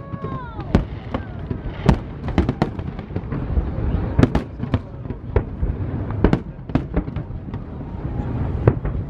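Aerial fireworks shells bursting overhead: a dozen or so sharp bangs at irregular intervals over a continuous low rumble.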